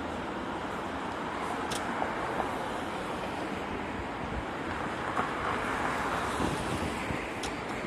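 Steady outdoor street noise, a dense even hiss and rumble with a few faint clicks.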